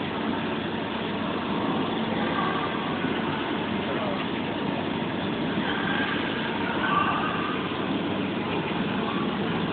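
Steady mechanical running noise, with faint voices now and then.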